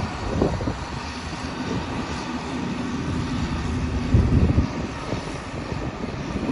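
Diesel engine of a Champion 720VHP motor grader running as the grader drives and turns, with a brief louder burst about four seconds in.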